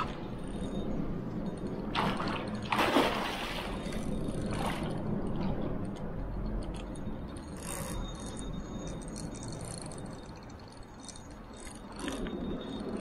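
Fishing reel being cranked to retrieve a lure through river water, with light clicking and soft water sounds, and a few brief swishes about two and three seconds in.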